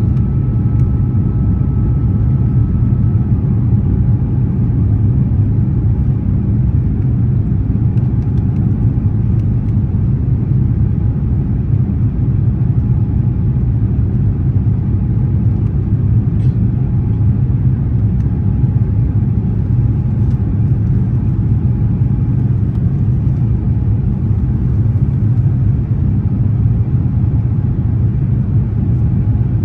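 Steady low rumble of a jet airliner in flight, engine and airflow noise heard inside the cabin, with a faint high tone that stops about three seconds in.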